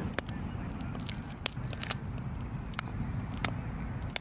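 Obsidian flakes snapping off under a deer antler tine during pressure flaking: several sharp clicks at irregular intervals, over a steady low rumble in the background.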